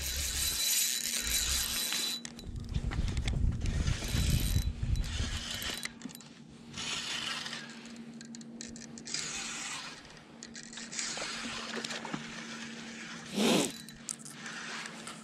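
Spinning reel being cranked to retrieve a lure, its gears and rotor whirring with a steady low hum and scratchy mechanical rattling. A low rumble runs through the first few seconds, and there is one brief louder burst near the end.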